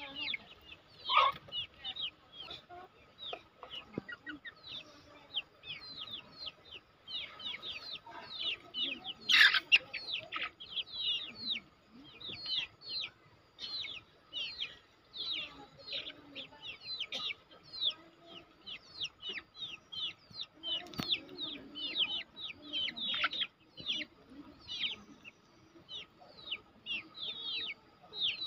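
Domestic chickens calling: a steady run of short, high, falling chirps, several a second, with a louder call about a second in and another near ten seconds.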